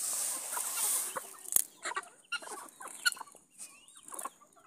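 A free-range flock of chickens clucking while they feed, many short calls overlapping. A hiss covers about the first second, and there is one sharp click about a second and a half in.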